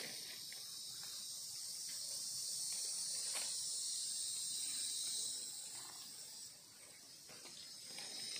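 Steady high-pitched insect chorus. It fades about six and a half seconds in and swells again near the end.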